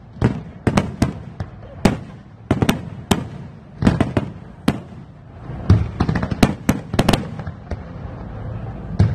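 Aerial fireworks display: shells bursting overhead in a rapid, irregular string of sharp bangs, about two a second, over a steady low rumble, easing off briefly near the end.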